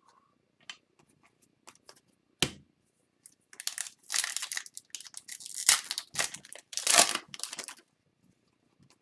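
Foil wrapper of a hockey card pack crinkling and tearing as it is handled, with a sharp click about two and a half seconds in and a long run of crackling in the middle.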